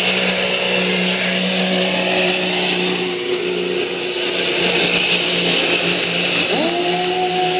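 Modified diesel pickup engine running flat out under full load as it drags a weight-transfer pulling sled, a steady high drone. A higher wavering tone joins in near the end.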